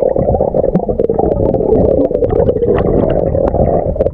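Muffled rumbling and sloshing of sea water, heard through an action camera in the water, with many small clicks throughout.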